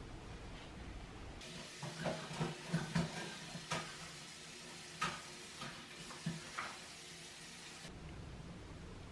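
Clothing rustling and short scraping clicks of hands fumbling with a zipper on the back of a dress, with several small knocks, mostly from about one and a half seconds in to about eight seconds in.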